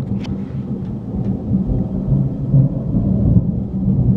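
Heavy thunder rumbling low and without a break, swelling a little around the middle.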